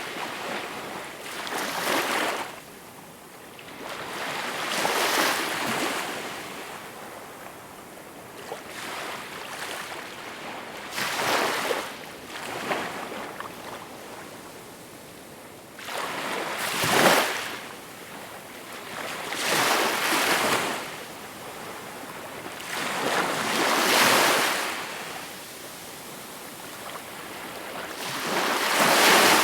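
Small waves washing onto a shore. Each breaks as a rush of surf that swells and falls away, one after another about every three seconds.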